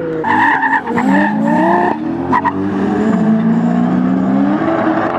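Drift car engines revving hard and changing pitch as the cars slide, with tyres squealing loudly for the first couple of seconds.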